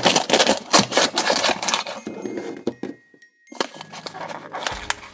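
Rapid plastic clicking and clattering as small toy pieces are handled and a toy house is opened, with a short pause about three seconds in.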